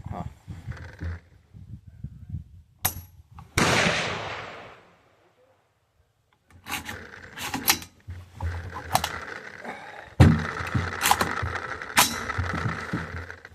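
Sharp metallic clicks, clacks and scraping from handling a 3D-printed AR-15 rifle, its parts being worked by hand, with a louder rattling scrape about three and a half seconds in and a hard knock about ten seconds in.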